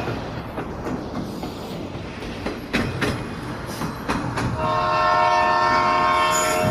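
Train running along the rails, a rumble with a few sharp clacks over the rail joints. About four and a half seconds in, a loud train horn sounds several notes at once and holds steady for about two seconds.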